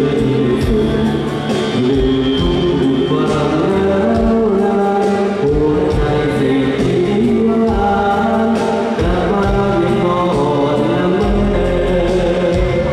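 A group of men singing together into microphones over a musical accompaniment with a steady beat.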